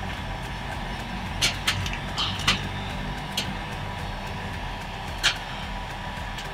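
Mailtank SH-28 2000 W heat gun running on its low-speed setting: a steady blowing hum from its fan. A cluster of short sharp crackles comes a second or two in, and another about five seconds in.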